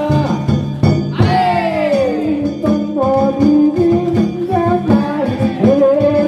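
Live music: a singer holding long, wavering notes over instrumental accompaniment with regular drum strokes, including one long note that falls in pitch just after a second in.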